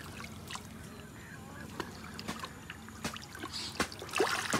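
Lake water sloshing and dripping around a person wading in it, with a few sharp drips. A louder splash and slosh comes about four seconds in.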